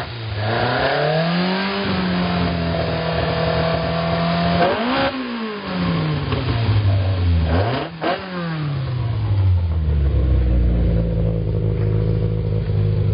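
Fiat 128 Europa's 1580 cc four-cylinder engine on twin carburettors, revved up and held at raised speed for a few seconds, then blipped sharply twice, falling back each time. It settles to a steady idle about ten seconds in.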